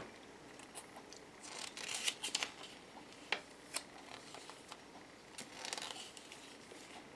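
Quiet rustling of a small paper instruction booklet as its pages are turned and handled, with a few light sharp ticks of fingers on paper.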